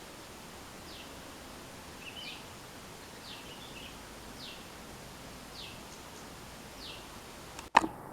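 A bird calling: a short, high note that drops quickly in pitch, repeated about once a second over steady outdoor background noise. A single loud, sharp click comes near the end.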